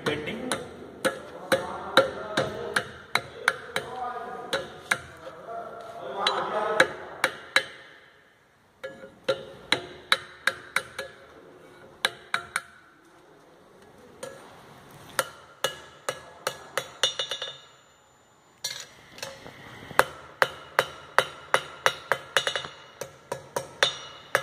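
Hand hammer striking a red-hot mild steel rod, bending it over a bar and on an anvil into a pipe hook. Sharp metallic blows come about three a second in runs, broken by two short pauses.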